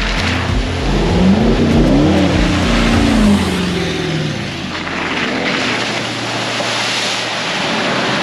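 A four-wheel drive's engine revving up and easing back off, then rising briefly again a few seconds later, as it is driven along a dirt track.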